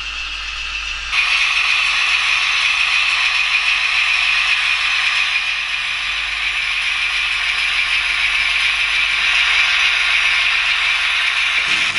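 N-scale model diesel locomotive running along the track, a steady mechanical whirring rattle of its motor, gears and wheels on the rails, louder after about a second.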